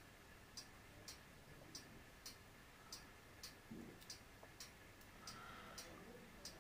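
Near silence with a faint, regular ticking, a little under two ticks a second.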